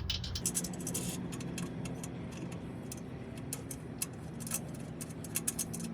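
Light, irregular metallic clicking and ticking as bolts are threaded into the front mounting holes of a skid plate, over a faint steady low hum.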